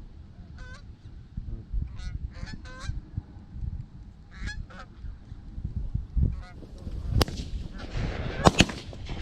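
Geese honking in short calls, then several shotgun shots in quick succession in the last two seconds as the geese are shot over the decoys.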